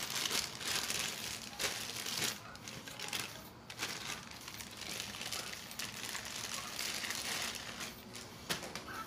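Clear plastic bag crinkling and rustling irregularly as a rifle scope is pulled out of it by hand, with a few sharp clicks from the handling.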